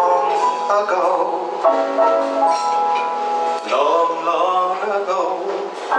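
Live band of piano, bass and drums playing a slow song, with a man singing held and sliding vocal notes over it.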